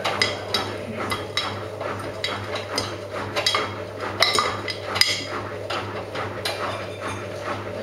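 Miele Navitronic front-loading washing machine tumbling a load of work clothes in wash water, with a steady low hum and irregular clinks and knocks several times a second.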